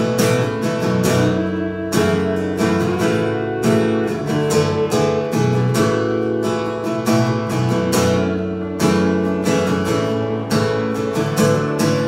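Acoustic guitar strummed in a steady rhythm of chords, with an electric guitar playing along: an instrumental break in a song, with no singing.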